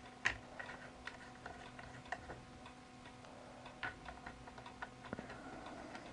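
Faint, irregular small clicks and taps of rig hardware being handled as the blue nuts are fitted and screwed onto the back of a camera shoulder rig.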